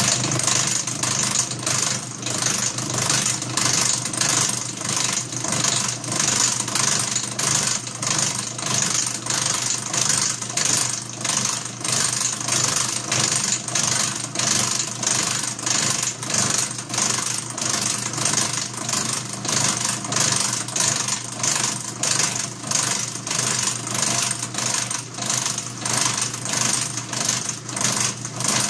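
Atlas horizontal milling machine running, its disc cutter taking the final 0.025 in pass through the slot in a stainless steel piston valve. A steady machine hum and high cutting hiss, with an even pulse about one and a half times a second.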